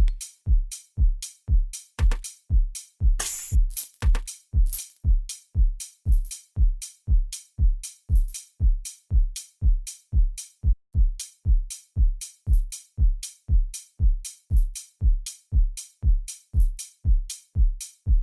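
Programmed electronic drum loop: a four-on-the-floor kick drum at about two beats a second, each kick dropping in pitch, with hi-hats on the off-beats. A short cymbal crash comes about three seconds in.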